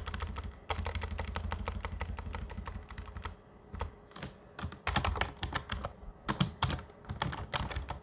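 Typing on a computer keyboard: a long run of rapid keystrokes in the first few seconds, then two shorter bursts of keys after a brief lull, as text is deleted and retyped.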